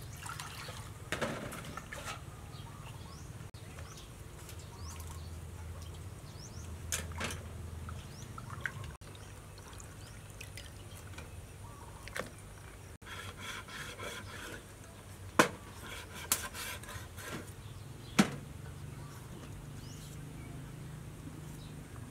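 Water poured and sloshed by hand in a stainless-steel bowl, with scattered clicks and two sharp knocks of a utensil on the bowl, over a steady low hum.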